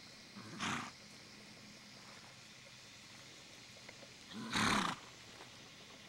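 A Thoroughbred horse snorting twice, short noisy exhales about four seconds apart, the second longer and louder.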